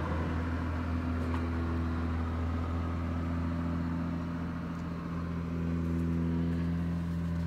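An engine running steadily at idle: a constant low hum that holds one pitch throughout.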